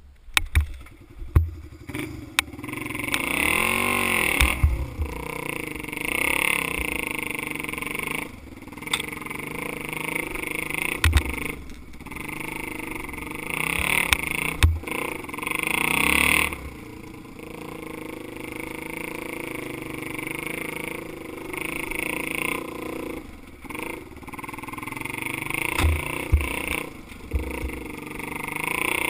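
Dirt bike engine revving up and down again and again as it rides a rough trail, with several sharp thumps from bumps.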